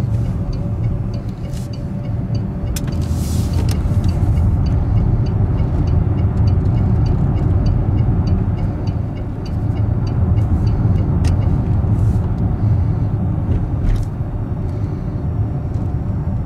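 In-cabin road noise of a Fisker Karma driving on battery power in Stealth mode, its range-extender engine not running: a steady low tyre and road rumble on a wet road. A faint light ticking repeats a few times a second.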